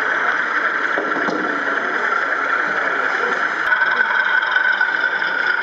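Steady background din of a busy exhibition hall, with no distinct events apart from a faint click about three and a half seconds in.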